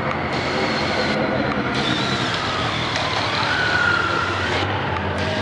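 A group of motorcycles passing by at low speed with their engines running. A high steady whine rises in and holds for about a second, a little past three seconds in.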